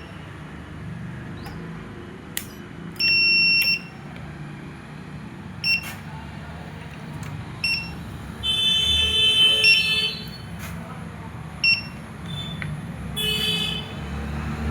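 Electronic buzzer beeps at one high pitch: a long beep about three seconds in, then several short beeps. Two bursts of a harsher, many-toned buzz come around nine and thirteen seconds in, over a low steady hum.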